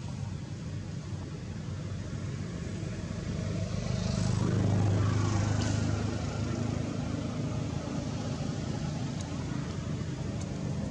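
A motor vehicle's engine passing by: a low hum that grows louder, peaks about five seconds in, then fades.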